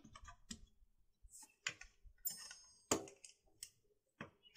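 Plastic motorcycle side cover being pressed and worked onto its mounts: scattered, irregular clicks and knocks of plastic against the frame, the loudest about three seconds in.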